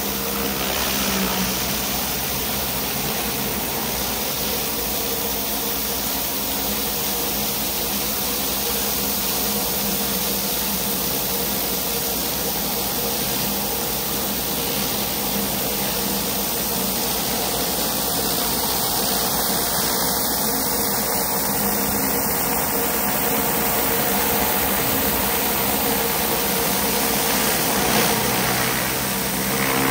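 Pressure washer running steadily: an engine hum under the hiss of high-pressure water spraying onto concrete through a surface cleaner.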